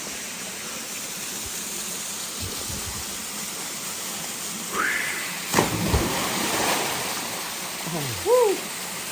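Steady rush of a waterfall pouring into a pool. A sharp splash about five and a half seconds in, with short shouts around it.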